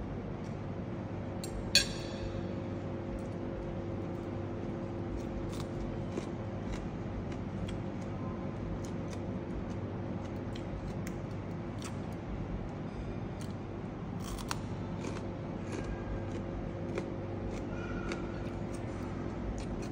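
Spoon and fork clicking and scraping on a ceramic plate while eating, with one sharp, louder clink about two seconds in. A steady low hum runs underneath.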